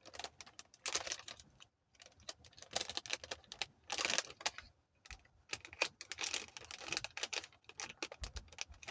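Hands handling a laptop battery and its packaging: irregular clicks, taps and rustling with no steady rhythm.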